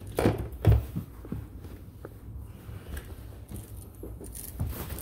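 Soft thumps and rustling as a carpet stair runner is stepped on and shifted on the stair treads. There are two heavier thumps in the first second, then scattered light clicks and a brief brighter rustle near the end.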